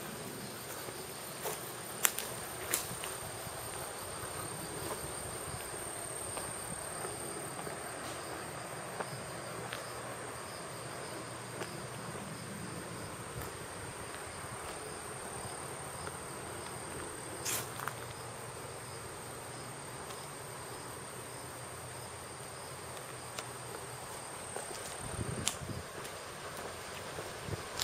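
Insects calling in one steady high-pitched tone, with a few sharp clicks here and there; the loudest comes about two seconds in, another past the middle.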